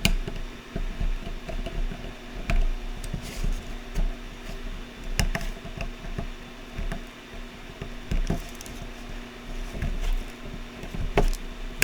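Wire cutters snipping off excess transistor leads on a circuit board: a sharp click every second or two over a low steady hum.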